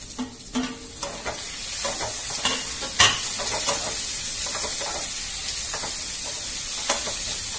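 Tomato dropped into hot oil with fried onion and garlic paste in a kadai, setting off a sizzle that builds about a second in and then holds steady, with stirring in the pan. A sharp knock comes about three seconds in, and a smaller one near the end.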